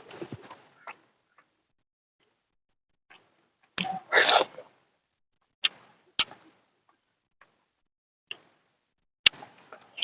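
Close-miked eating of chicken curry: a few sharp clicks spaced a second or more apart, and a longer hissing burst about four seconds in.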